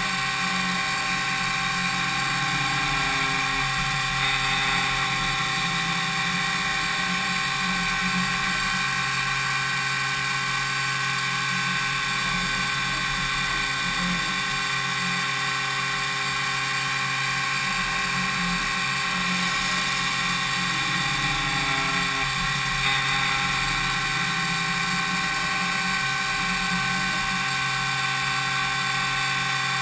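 DMU 70V five-axis CNC milling machine cutting an impeller's blades: a steady whine from the spindle and cutter, made of many held tones over a low hum.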